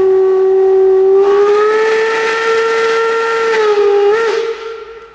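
Steam whistle of the class 01 Pacific locomotive 01 202 blowing one long blast that steps up slightly in pitch about a second in, wavers near the end and cuts off about four and a half seconds in.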